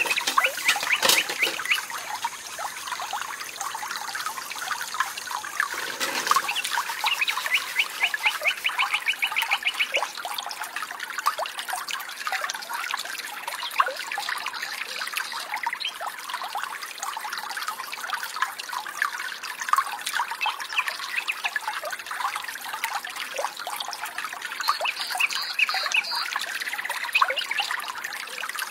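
Small stream trickling steadily, with occasional knocks of green bamboo poles being laid and handled. A rapid trill comes in for a few seconds about seven seconds in.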